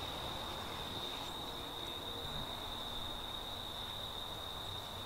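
A steady, high-pitched insect chorus, unbroken throughout, over faint outdoor background hiss.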